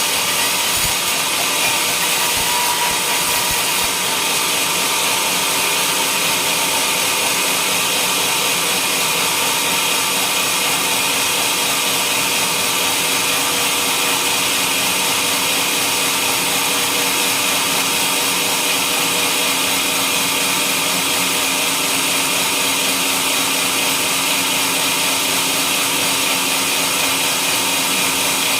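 Sawmill blade cutting through a coconut palm log, a steady, unbroken run of motor and saw noise.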